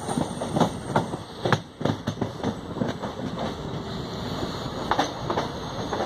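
Passenger train running on the line, a steady rumble with sharp clacks of the wheels over rail joints, several close together in the first two seconds and another pair about five seconds in.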